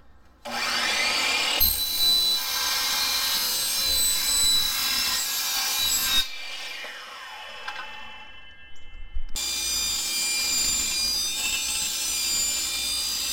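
Bosch sliding miter saw spinning up and cutting through aluminum angle with a loud, high-pitched whine. About six seconds in it is released and winds down with a falling pitch. A few seconds later a table saw rips an aluminum sliding-closet-door track lengthwise with the same kind of high-pitched cutting noise.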